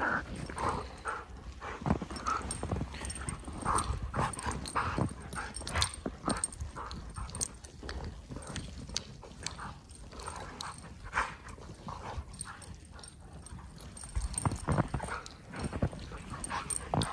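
Two Siberian huskies play-fighting in snow: short dog vocal sounds, most of them in the first six seconds, over the scuffle of paws in the snow.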